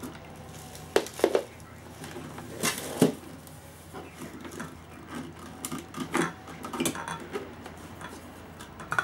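Clicks and knocks of a plastic lid being fitted onto a thermo cooker's stainless-steel jug, then of the jug being handled and lifted off its base. The sharpest clicks come about a second in and about three seconds in.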